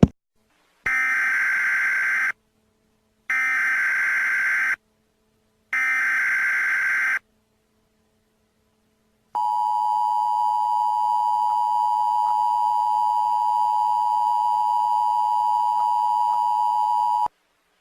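Emergency Alert System activation. First come three separate bursts of SAME header data tones, each about a second and a half long with a short pause between them. These are followed by the EAS two-tone attention signal (about 853 and 960 Hz together), held steady for about eight seconds and then cut off suddenly. It is the standard header and alert tone that announce an incoming EAS warning message.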